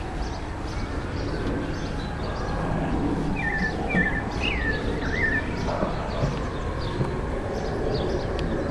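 Small birds chirping, a run of short falling notes about halfway through, over a steady low rumble of outdoor background noise.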